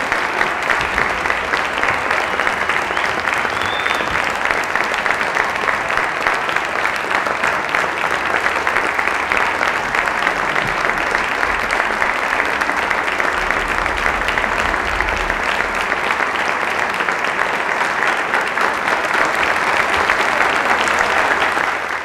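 Concert-hall audience applauding steadily, many hands clapping in a dense, even wash of sound.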